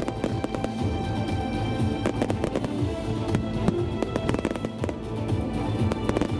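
Aerial firework shells bursting in quick, irregular succession, with many sharp bangs and crackles, over music with held tones.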